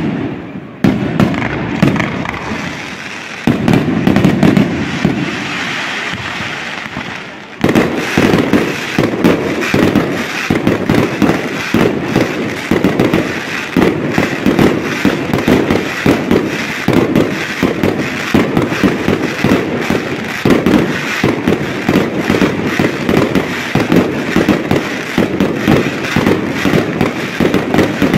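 Aerial fireworks display: shells bursting in a run of loud bangs and crackles, growing suddenly into a dense, rapid barrage about eight seconds in that keeps going.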